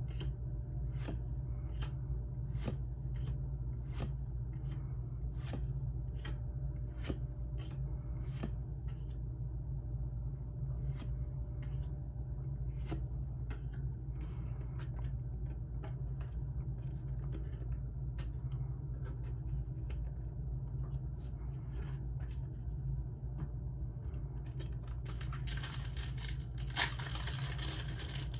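Pokémon trading cards being flipped through one by one, a soft click about every 0.7 s at first and then more sparsely, over a steady low hum. Near the end a booster pack wrapper starts to crinkle and tear.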